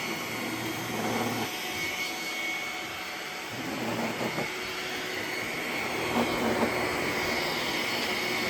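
Roomba robot vacuums running with a steady whir and a faint high whine, with a few brief clicks and rattles about four and six seconds in.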